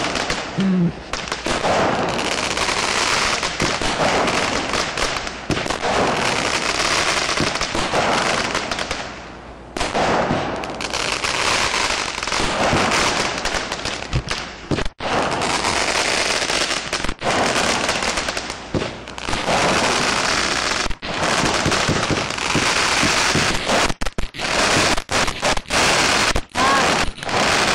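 Backyard consumer fireworks going off: dense crackling and popping in long runs of several seconds, broken by short gaps. The gaps come thicker toward the end.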